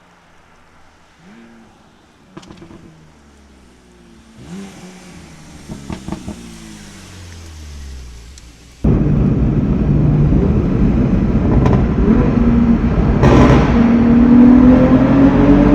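BMW S55 twin-turbo inline-six with a titanium equal-length valved exhaust, first faint with a few rev changes and clicks, then, about nine seconds in, suddenly loud as it pulls hard under acceleration, its pitch rising steadily through the gear, in a tunnel run.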